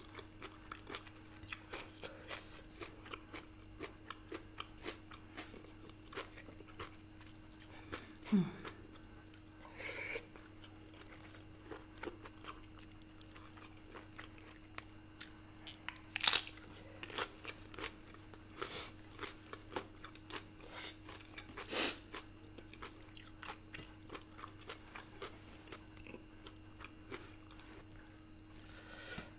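A person chewing food close to the microphone: a steady run of small wet mouth clicks and crunches, with a few louder crunches spread through. A short low sound from the throat about eight seconds in, over a faint steady background hum.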